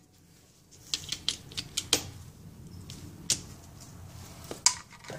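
A run of light, uneven clicks and taps from about a second in, with one more near the end: hand tools and small metal parts being picked up and handled.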